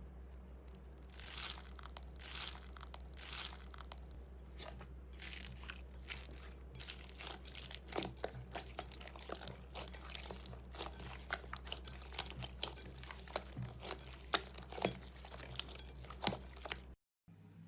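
Slime being squeezed and worked by hand, giving irregular crackling and crunching pops, several a second, typical of crunchy slime.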